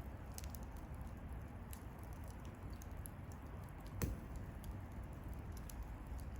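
Wood bonfire burning with a steady low rumble and scattered small crackles, and one louder pop about four seconds in.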